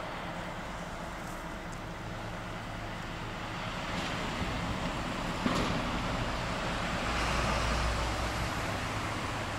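T448p diesel shunting locomotive running at low speed, its engine drone growing louder as it approaches. There is one sharp metallic click about halfway through, and the engine is at its loudest near the end.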